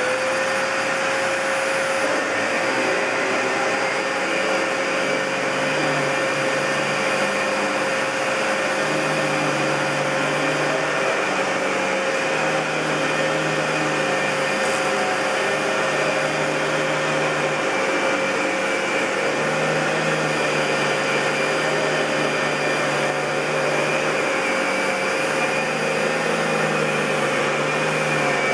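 A 1999 Fantom Lightning bagless cyclonic canister vacuum cleaner running steadily at full speed just after switch-on, a loud airy rush with a high motor whine held at one pitch.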